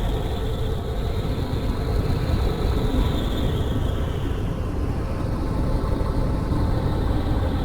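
Experimental noise music: a dense, steady low rumble, with a faint high tone above it that rises a little, then slowly sinks in pitch through the second half.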